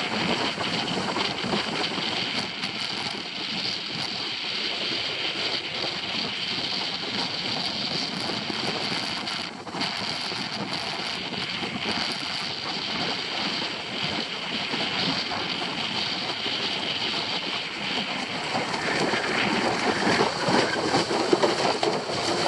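Formula windsurf board planing at speed: a steady rush of water and spray off the hull, with wind buffeting the microphone. It grows louder and rougher near the end.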